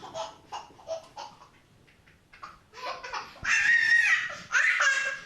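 An 18-month-old baby boy laughing: a run of short laughing bursts, a brief lull, then loud, long, high-pitched belly laughs in the second half.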